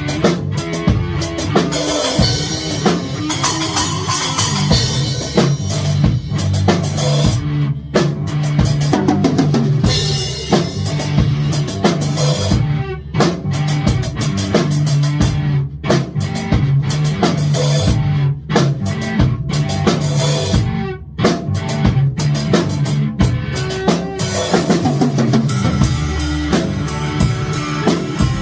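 Music with a drum kit keeping a steady beat, bass drum and snare under sustained pitched parts.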